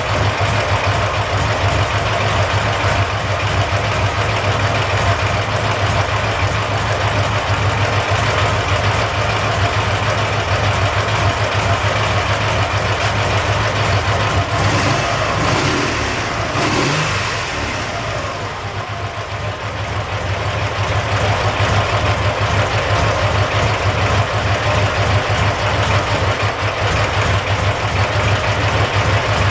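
Dnepr MT-10-36 motorcycle's opposed-twin engine running steadily, the engine whose knock is being traced. The revs sag for a couple of seconds a little past halfway, then pick back up.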